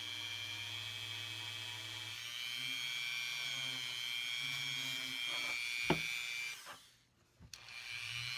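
Dremel rotary tool with a 600-grit sanding bit whining steadily as it smooths the joint of a 14k gold ring band. Its pitch shifts about two seconds in, there is a sharp tick near six seconds, and the tool stops briefly near the end before running again.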